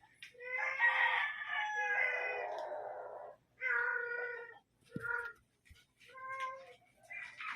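A cat meowing repeatedly: one long drawn-out call of about three seconds, then several shorter meows.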